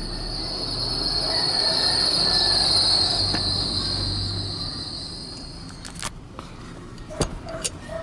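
A steady high-pitched whine swells and fades out about six seconds in. Then come a few sharp clicks and knocks of a metal socket ratchet being handled.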